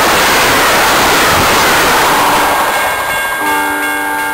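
Passenger train cars rushing past close by, a loud steady rumble and hiss of wheels on rail that fades as the last cars go by. Near the end a train horn sounds a steady chord.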